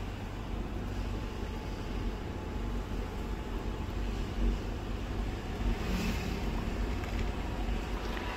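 Steady low rumble of a car driving, heard from inside the cabin: engine and tyre noise. A brief higher noise about six seconds in.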